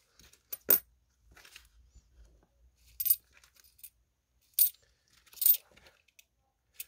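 Korean 500-won cupronickel coins clinking as a gloved hand picks them up and sets them down on a paper sheet: a few sharp clinks a second or two apart, the loudest about a second in.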